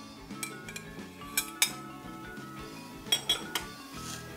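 Cutlery clinking and knocking against plates as a slice of cake is lifted onto a small plate, in two short clusters of clicks, over soft background music.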